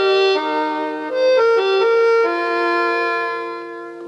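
Music: a slow melody of held notes on a reedy wind instrument, ending on a long note that fades near the end.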